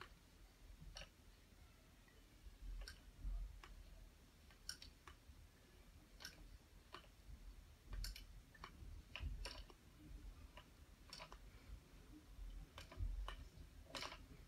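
Faint, irregular metal clicks, roughly one a second, from the latch needles of an Erlbacher Speedster circular sock machine as a hand tool and yarn are worked over them by hand, with a few soft handling thuds.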